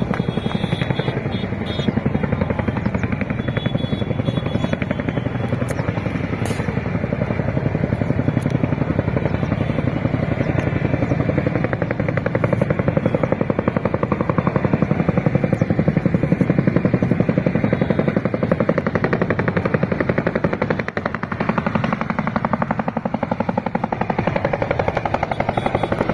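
Helicopter flying overhead, its rotor chopping in a rapid, even pulse.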